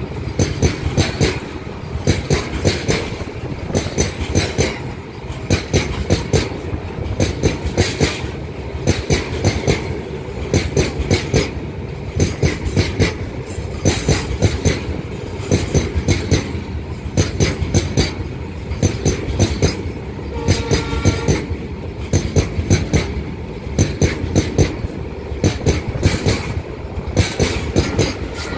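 Open goods wagons of a long freight train passing close at speed: the wheels clatter over the rail joints in quick groups of clicks about once a second (clickety-clack), over a steady rolling rumble.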